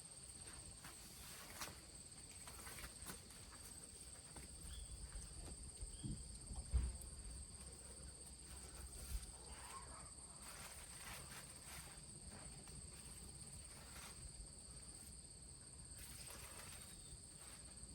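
Faint rustling of leaves and vines, with footsteps and a couple of low thumps about six and seven seconds in, over a steady high-pitched insect drone.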